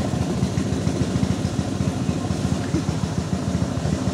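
Small boat motor pushing a wooden canoe, running steadily with a fast, even low-pitched pulsing.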